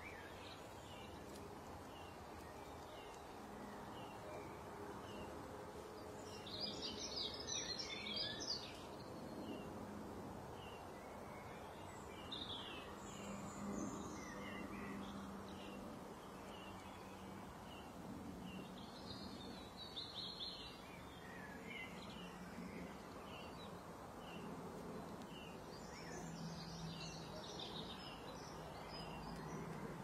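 Small songbirds chirping and twittering: scattered single chirps, with four busier flurries several seconds apart, over a steady low background noise.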